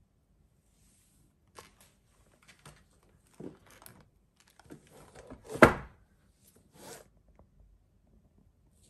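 Handling sounds of a tiered osechi food box: the lid lifted off and the stacked tiers slid apart and set down on the table, a series of short scrapes and soft knocks with one sharper knock a little past halfway.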